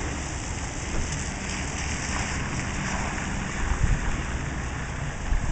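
Steady rain falling on wet pavement and vehicles, with a low steady hum underneath and two dull thumps in the second half.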